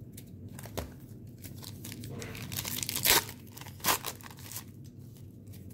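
A 1990 Pro Set football card pack's wrapper being torn open by hand: a run of crinkling and ripping crackles, the loudest about three and four seconds in.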